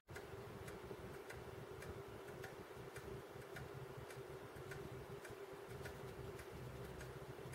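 Faint, regular ticking, a little under two ticks a second, over a steady low hum.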